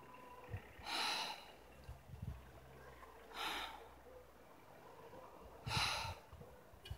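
A person breathing close to the microphone: three hissing breaths about two and a half seconds apart, with a few low thumps between them.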